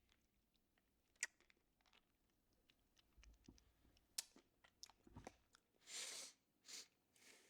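Faint mouth sounds of someone sucking on a hard herbal cough drop: scattered small clicks and wet smacks, with a few short breathy hisses near the end.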